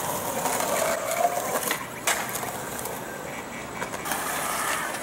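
Skateboard wheels rolling on concrete, with sharp board clacks at the start and about two seconds in, under faint background voices.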